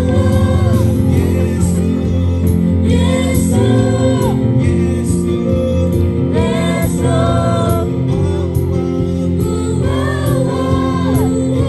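Live Christian worship band: a group of men and women singing together into microphones, backed by electric guitar, keyboard and drums.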